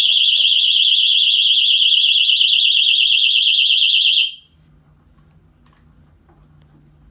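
Motion-sensor alarm sounding a loud, rapidly warbling, high-pitched electronic tone that cuts off suddenly about four seconds in as it is switched off by hand; a faint low hum remains after it.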